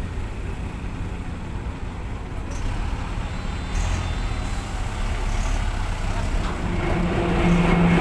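Heavy truck's engine running with a low rumble, growing gradually louder as it works its way off the ferry ramp.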